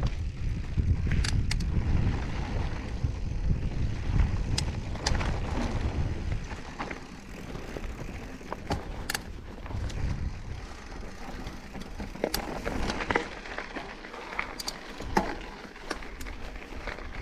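Mountain bike riding fast down a dirt trail: tyres rolling over dirt with wind rumbling on the microphone, heaviest in the first several seconds, and sharp clicks and rattles from the bike throughout.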